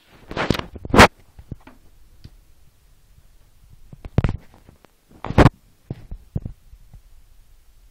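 Handling noise from a handheld camera being moved about: a scuffing rustle and a sharp thump about a second in, two more thumps a few seconds later, then a few fainter knocks.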